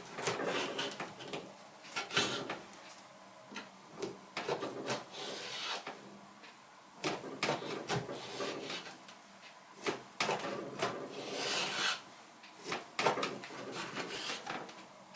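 Hand work in the kitchen: irregular knocks and scraping on a wooden surface, with a few longer scraping strokes.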